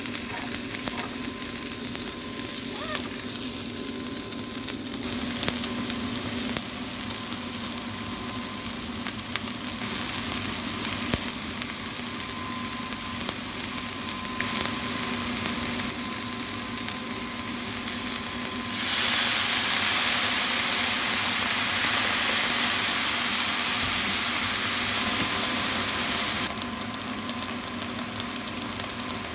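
Onion, garlic and mushrooms sizzling as they are stir-fried in a hot pan. About two-thirds of the way through the sizzle gets louder and brighter for around eight seconds, then drops back.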